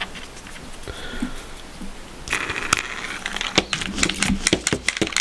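Handling noise on a workbench: a few faint clicks, then from about two seconds in a busy run of sharp clicks and rustling as small parts, a wheel and collars for a wire landing gear, are handled and set down on a cutting mat.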